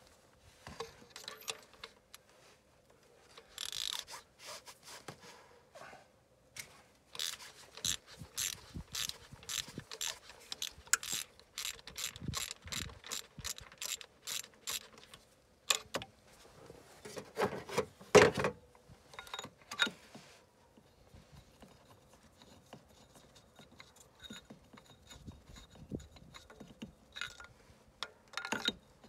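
Ratchet wrench clicking in quick, even runs of strokes as it turns a spark plug in the engine's cylinder head. A few louder clattering knocks come a little past the middle.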